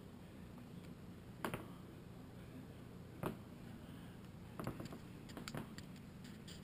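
A few sharp clicks and taps, the loudest about one and a half and three seconds in, from a hand handling a GoPro camera, over a faint steady hum.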